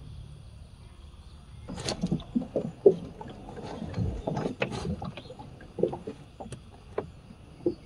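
A run of irregular knocks and clatters, a dozen or so, with a few sharper clacks among them; they begin about two seconds in and keep going until near the end.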